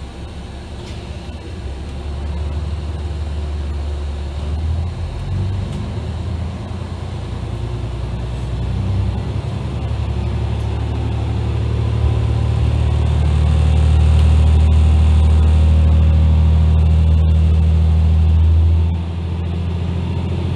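Diesel railcar's underfloor engine pulling away from a station stop. Its low drone grows louder over the first several seconds, runs loudest for a stretch, then drops off sharply near the end as the power eases.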